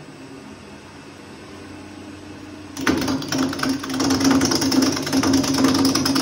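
Wood lathe running with a low hum; about three seconds in, a gouge starts cutting into the spinning wood blank, a loud, rapid rattle of tool on wood with a steady drone underneath.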